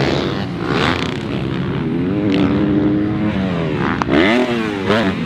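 Dirt bike engine on a motocross track, its pitch rising and falling with the throttle, with two quick rev blips near the end.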